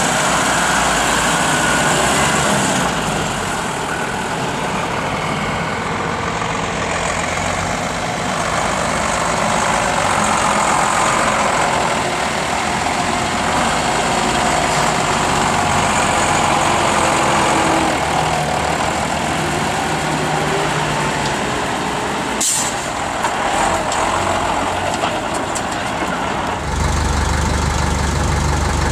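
Diesel engines of Unimog off-road trucks running under load as they crawl through a muddy trial course. The engine sound changes character a few times as different trucks pass, and a sharp knock is heard about three-quarters of the way through.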